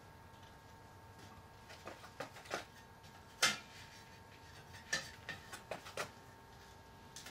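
Copper tubing being bent and wound into a coil around a propane tank, giving a series of irregular light clicks and knocks as the tube bumps against the tank. The loudest knock comes about three and a half seconds in.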